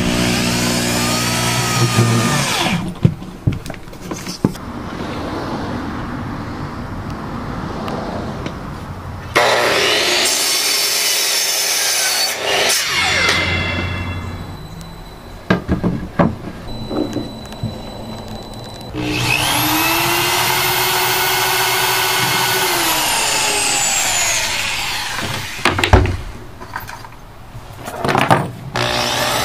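A corded electric drill runs and winds down. Then a DeWalt miter saw twice spins up, cuts through a hardwood flooring board and coasts down, about ten seconds in and again about twenty seconds in. A sharp thump follows near the end, and the drill starts again.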